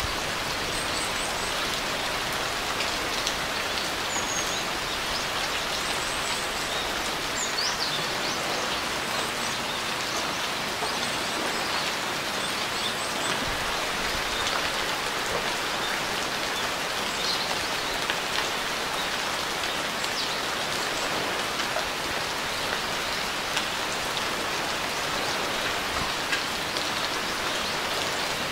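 Steady, even rainfall, with a few faint, high bird chirps over it in the first several seconds and again near the middle.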